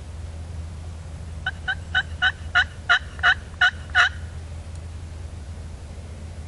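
Wild turkey calling: a series of about ten short yelps, about three a second, growing louder toward the end.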